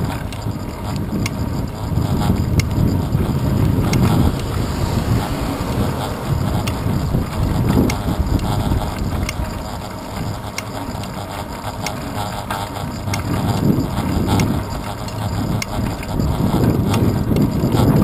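Wind buffeting and road rumble picked up by a handlebar-mounted GoPro Hero 2 on a moving bicycle, a steady low rushing that swells and eases, with many small clicks and rattles through the handlebar mount.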